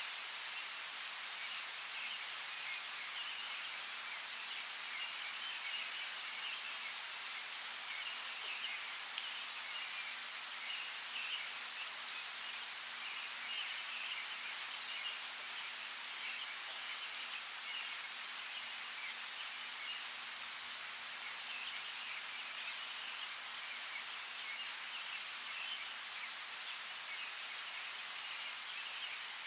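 Steady rain falling with scattered drop hits. Small birds chirp in patches throughout.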